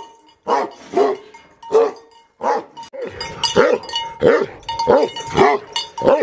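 Tibetan Mastiff barking aggressively in a steady run of single barks, about ten of them, spaced a bit over half a second apart and coming quicker from about halfway through.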